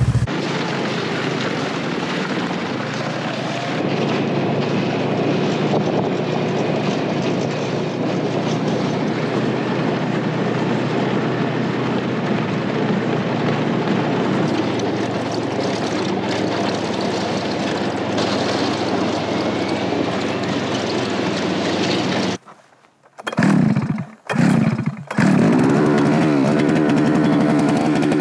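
Snowmobile engine running steadily for most of the stretch, with a few brief breaks near the end. Then a handheld gasoline ice auger's small engine runs steadily at a higher, buzzing pitch.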